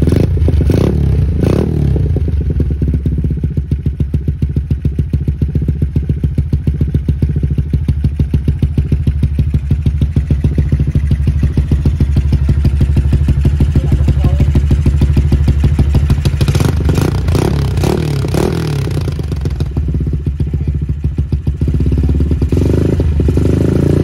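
Yamaha LC135's single-cylinder four-stroke engine idling through a GL Racing 32mm cutting-standard exhaust, a steady fast pulsing beat at the outlet. The throttle is blipped briefly near the start and again for a few seconds past the middle, the pitch rising with each rev.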